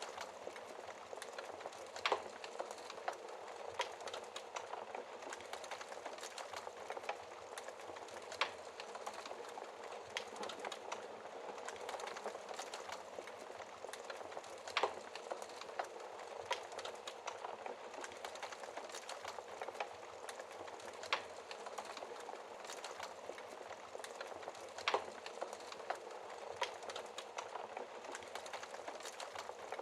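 Fire in a fireplace crackling steadily, with a sharp, louder pop every few seconds.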